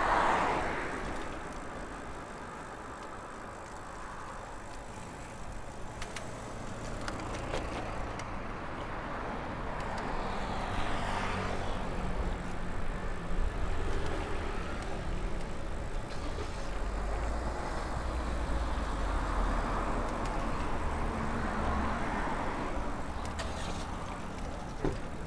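Road traffic while cycling: motor vehicles pass several times, each swelling and fading away, over a steady low rumble of wind and tyre noise.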